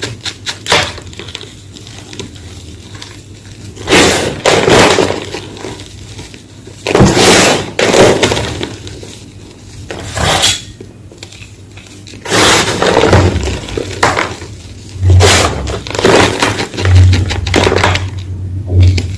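A homemade gym chalk block being crushed, giving a series of loud, dry crunches, each up to about a second long, with short pauses between.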